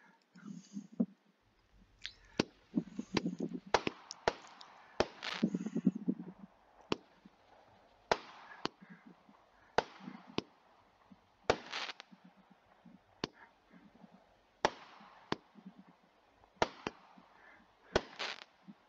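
A 200-gram repeater cake firework, 'At It Again', firing a string of sharp cracking shots at irregular intervals of about a second, with some low thuds among the first few.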